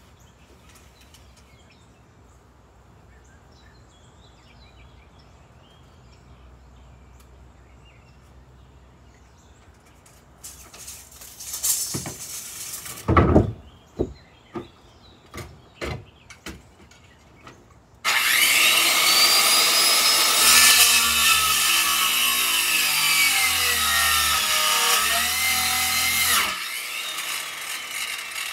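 Corded circular saw starting up about eighteen seconds in and cutting through a wooden deck board for about eight seconds, its motor pitch sagging and recovering as the blade bites. Before that, a few knocks and thumps as the boards are handled on the deck.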